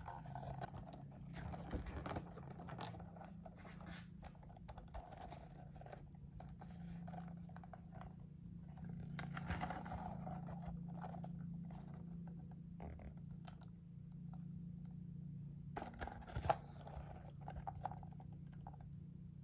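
Paper and packaging being handled: irregular rustling, scraping and light taps, with a louder clatter about sixteen seconds in, over a steady low hum.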